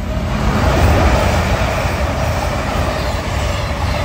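Double CrossCountry Voyager diesel multiple unit, a class 220 leading a class 221, passing close at speed: underfloor diesel engines and wheels on rail. It builds to its loudest about a second in and stays loud as the coaches go by.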